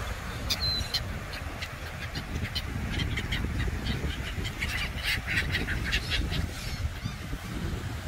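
A flock of gulls calling, many short harsh cries overlapping and thickest a little past the middle, over a steady low rumble of wind on the microphone and surf.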